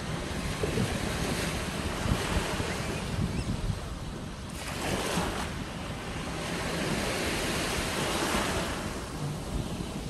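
Small waves washing up and draining back on a sandy shore, swelling loudest about halfway through and again a little later. Wind buffets the microphone underneath.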